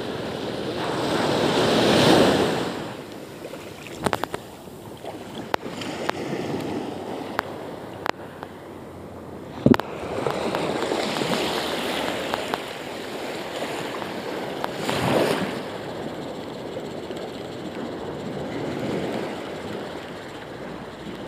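Small waves breaking and washing up on a sandy shore, swelling and fading several times. A few sharp clicks cut through, the loudest about ten seconds in.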